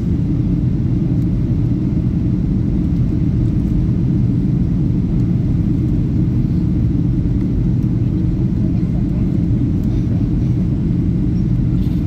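Steady low rumble of an airliner cabin, the engines and airframe noise holding at an even level.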